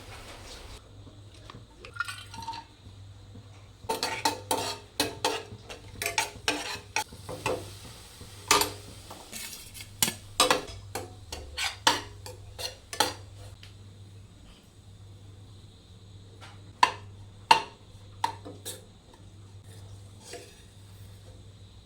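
Kitchen utensils clinking against a dish, in quick clusters of sharp taps and scrapes, with a few louder single clinks near the end.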